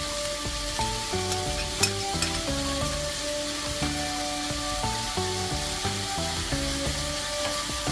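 Food sizzling and being stirred in a frying pan, a steady hiss, with a few sharp clicks about two seconds in.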